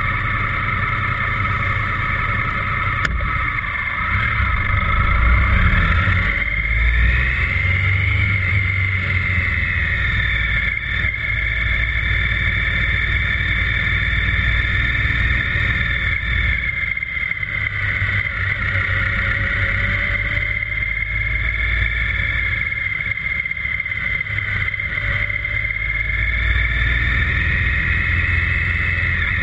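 Motorcycle engine running at low speed, heard from a camera mounted on the bike, with a whine that rises as it picks up speed about six seconds in and again near the end.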